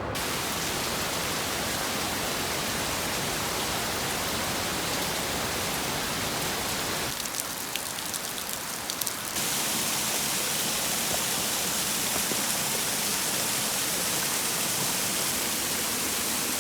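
Heavy storm rain pouring, a steady hiss. From about seven to nine seconds in it thins to a patter of separate drops, then comes back as a brighter, steady rush.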